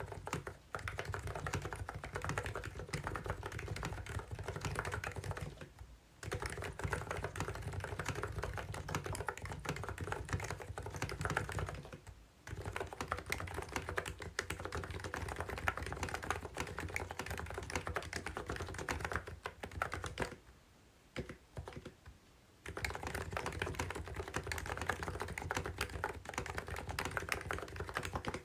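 Fast typing on a Cox CNK84W mini keyboard with electrostatic capacitive (non-contact) switches, a rapid stream of keystrokes. The runs of typing break off briefly three times, the longest pause a couple of seconds long about two-thirds of the way in.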